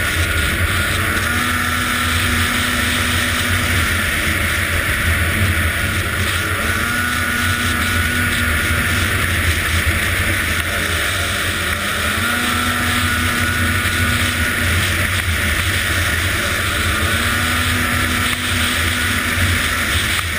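Arctic Cat ZR 800 snowmobile engine running steadily, with wind noise on the microphone and a faint tone that rises and levels off three or four times.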